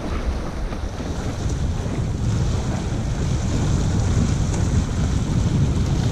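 Wind buffeting the microphone in a steady low rumble over the wash of sea waves against shore rocks.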